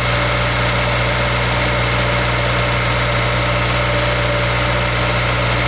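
Honda S2000's F22C 2.2-litre four-cylinder engine idling steadily, freshly started after a timing chain service.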